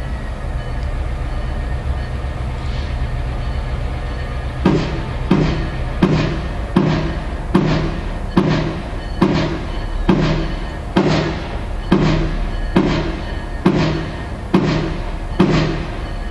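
Diesel switcher locomotive running with a low, steady rumble. About five seconds in, its bell starts ringing, one stroke a little more often than once a second, and keeps ringing as the locomotive moves.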